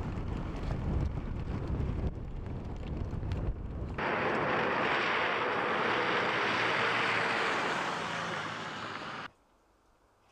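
Wind buffeting the microphone in a snowstorm, a low rumble. About four seconds in it gives way to a car approaching on a wet, slushy road, its tyres a steady hiss, which cuts off suddenly near the end.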